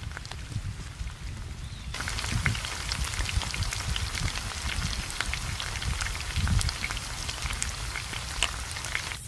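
Chopped vegetables hitting hot oil in a frying pan over a wood fire, sizzling and crackling densely. The sizzle starts suddenly about two seconds in and stops abruptly just before the end, over a low rumble.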